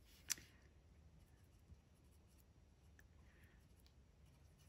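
Faint scratching of a colored pencil on textured paper, with a single sharp click shortly after the start.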